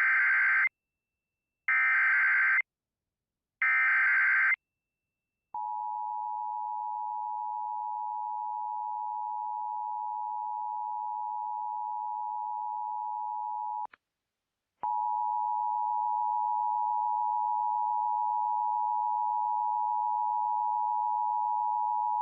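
EAS SAME header: three short bursts of harsh digital data tones, a second apart. Then the EAS attention signal, a steady two-tone alert tone, which breaks off for about a second partway through and resumes louder.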